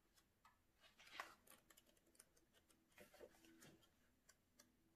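Near silence, with faint soft rustles and ticks of paper coloring-book pages being turned by hand.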